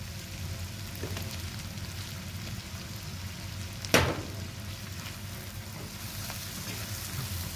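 Chopped onion and garlic frying in oil and butter in a nonstick pan, a steady sizzle, as quartered button mushrooms are tipped in and stirred with a slotted nylon spatula. A single sharp knock about four seconds in.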